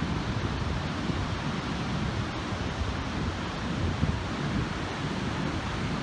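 Wind buffeting the microphone, over the steady wash of surf breaking on the beach.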